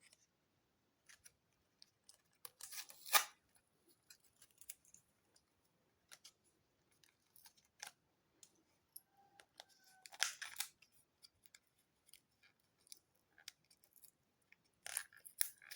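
Opening and handling the retail packaging of a laptop RAM module: faint scattered clicks of plastic and cardboard, with three brief crinkling or snipping sounds about three, ten and fifteen seconds in.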